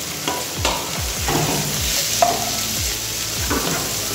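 Sliced mushrooms, chicken strips and onions sizzling in butter in a nonstick frying pan. A spatula knocks and scrapes against the pan several times as they are stirred in.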